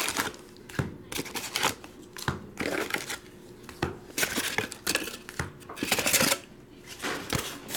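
Cardboard hobby box being handled: packs scraped and slid out of the box and its cardboard flap rustling. The sound comes as a series of short scraping, crinkling bursts, loudest about four and six seconds in.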